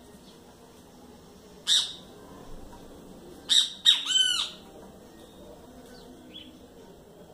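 Chalk-browed mockingbird giving short, rough calls: one about two seconds in, then a quick run of three about a second and a half later, the last one bending in pitch.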